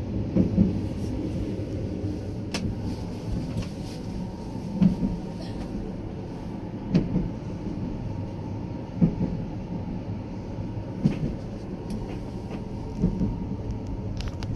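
Passenger train running, heard inside a sleeper compartment: a steady low rumble with a short knock about every two seconds.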